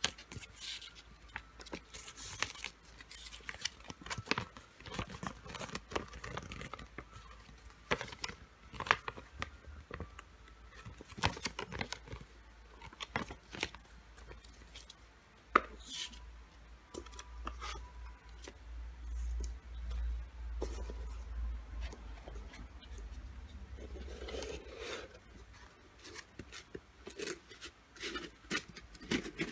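Lightstick packaging being handled and opened by hand: rustling and tearing with scattered sharp clicks and taps.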